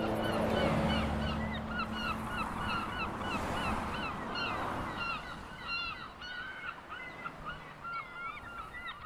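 A flock of birds calling: many short honking calls repeated several times a second and overlapping one another, growing quieter toward the end.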